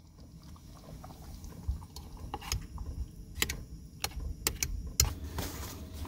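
Someone moving about and handling things: scattered sharp clicks and knocks over a low rumble, with a short rustle near the end.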